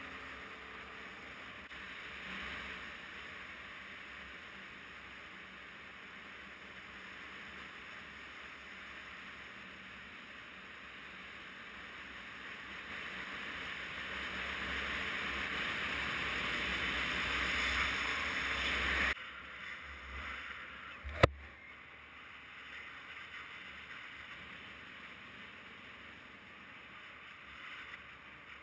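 Wind and road rush on a moving motorcycle's camera microphone, a steady hiss that swells louder, then drops off abruptly about two-thirds of the way in. A single sharp click comes a couple of seconds after the drop.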